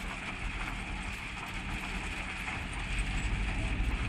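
Ballast hopper wagons of a works train rolling slowly on newly laid track: a steady low rumble with wheel-on-rail noise, growing a little louder about three seconds in.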